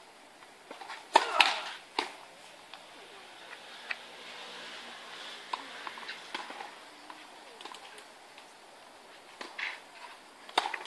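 Tennis ball struck by rackets and bouncing on the court during a rally: a series of separate sharp pops, the loudest pair about a second in, the rest lighter and spaced through the rest of the rally.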